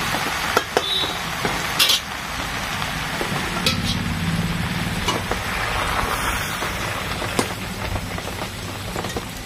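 Metal spatula stirring chickpeas and potatoes in a metal kadai, scraping the pan in a few sharp clicks over a steady hiss; near the end water is poured into the pan.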